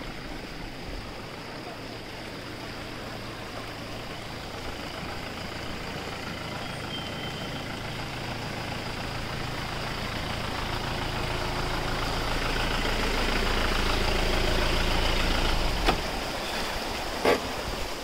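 A motor vehicle's engine idling, its low hum growing steadily louder through the middle and dropping off about sixteen seconds in. Two short sharp knocks come near the end.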